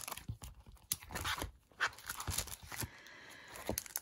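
Clear plastic sleeves of sticker sheets crinkling and rustling as they are handled, with many small irregular clicks and taps.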